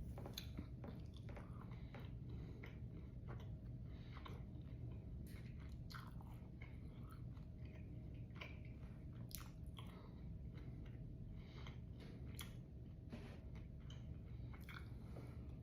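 Close chewing of a big mouthful of chamoy pickle with its toppings: irregular crunches and wet mouth clicks, over a steady low hum.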